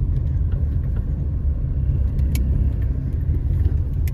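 Steady low rumble of a car driving, heard from inside the cabin: engine and road noise, with a faint click about two seconds in.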